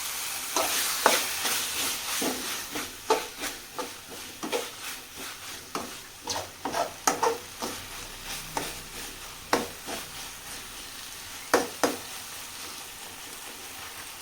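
Spoon scraping and stirring tomato chutney in a pan on the stove, irregular knocks and scrapes over a light frying sizzle. The strokes thin out near the end.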